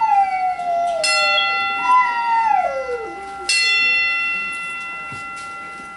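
Boxing ring bell struck twice, about a second in and again two and a half seconds later, each stroke ringing on: strokes of a ten-bell count, the salute for the dead. A dog howls along twice, each a long falling howl.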